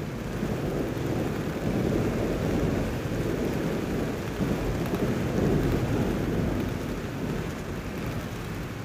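A low, rolling rumble like thunder over a steady hiss, swelling twice and easing off near the end.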